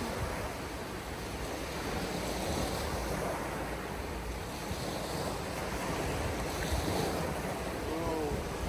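Surf breaking on a beach with strong wind buffeting the microphone, a steady rushing noise.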